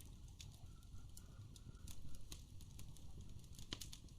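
Fire crackling: irregular small pops and snaps over a low, steady rumble.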